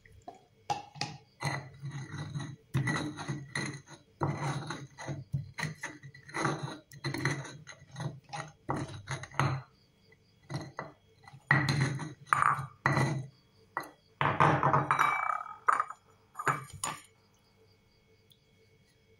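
Stone pestle scraping and knocking against a stone mortar as it stirs water into freshly ground spice paste. It comes as a string of short, irregular strokes with brief pauses and stops about two seconds before the end.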